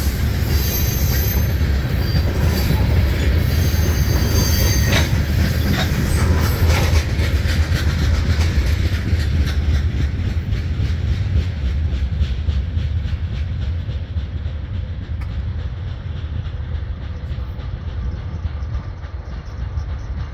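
CSX freight train of tank cars rolling past, its wheels clacking over the rails and squealing in high tones for the first several seconds. The last cars pass and the sound eases to a lower, steady rumble.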